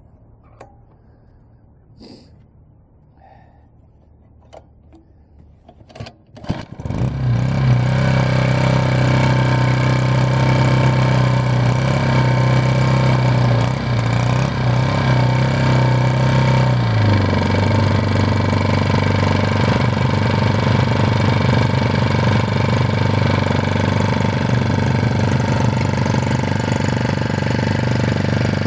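Predator 79cc single-cylinder OHV engine: a few faint clicks, then the engine catches about six seconds in and runs steadily at a higher speed. About ten seconds later its speed drops to a lower, steady running pitch.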